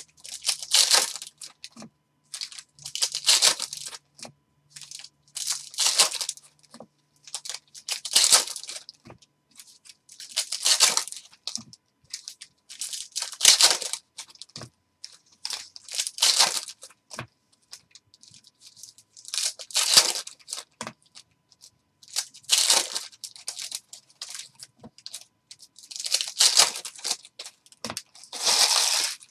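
Plastic trading-card pack wrappers crinkling and tearing as packs are ripped open and the cards pulled out, in short bursts every two to three seconds.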